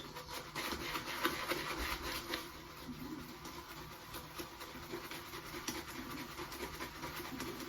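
Shaving brush swirled and scrubbed against shaving soap with coconut water, a steady wet rubbing and scratching with small ticks. The lather is still thin and not building up.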